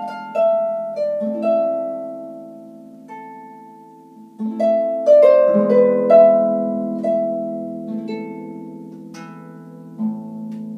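Concert harp played solo: single plucked notes and chords spread note by note, each left ringing. A low chord is plucked about ten seconds in and rings on.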